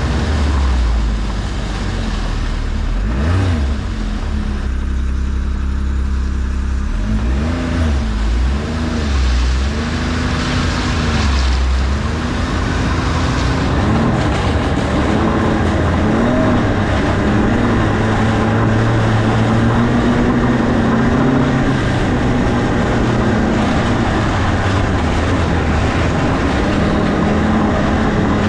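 A small engine running and revving up and down over and over, its pitch rising and falling every second or two, then holding steadier with smaller swells in the second half.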